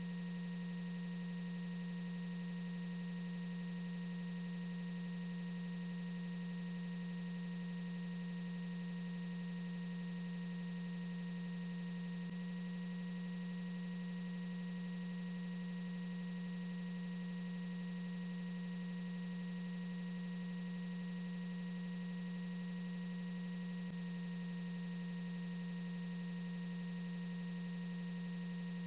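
A steady, unchanging low hum with fainter steady higher tones above it.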